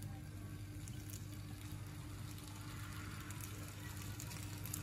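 Potato slices frying faintly in a pan, a steady quiet sizzle, with light ticks as more slices are laid in, over a steady low hum.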